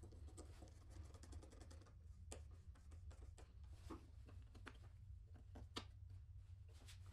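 Faint hand work: a quick run of light clicks and scratching, then scattered single clicks, over a low steady hum.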